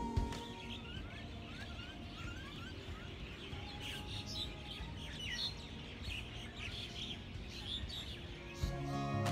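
Wild birds chirping and twittering, with a run of short rising chirps about two seconds in. Music comes back in near the end.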